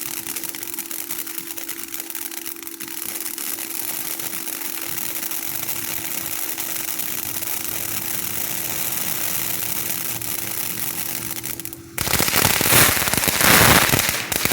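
Firework fountain burning: a steady spray hiss with fine crackling, then about twelve seconds in a sudden, much louder burst of dense crackling as a crackle mine goes off.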